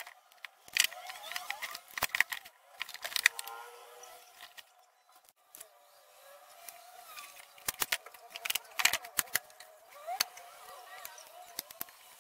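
Clicks and knocks of plywood parts and hand-held pieces being handled and set down on a wooden workbench, coming in irregular clusters, thickest about two to three seconds in and again around eight to nine seconds in.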